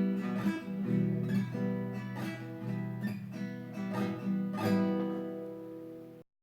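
Acoustic guitar strumming the closing chords of a song, with about one stroke a second. It grows gradually quieter, then stops abruptly near the end.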